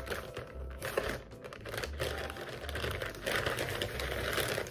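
Clear plastic wrapping crinkling as it is handled, a continuous crackly rustle.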